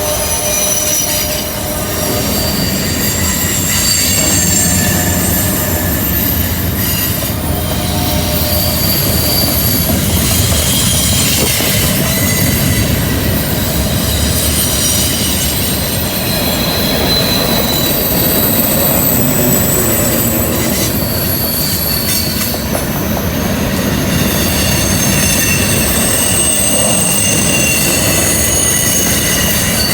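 CN freight train rolling through a curve: a steady rumble of wheels on rail, with the wheels squealing against the rails in thin, high tones that shift and overlap.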